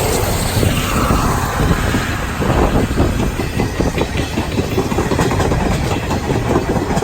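Steam-hauled passenger train of 12-series coaches behind locomotive C57 180 rolling close past. Its wheels make a loud, rapid, uneven clatter over the rail joints above a steady rumble.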